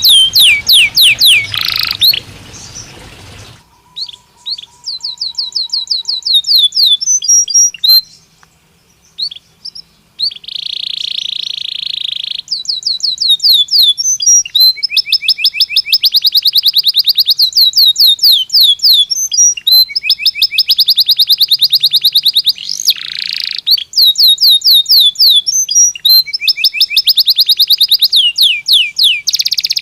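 Belgian canary singing in long, rapid trills of repeated falling whistled notes. There is a short break about eight seconds in and a harsh buzzing phrase around eleven seconds.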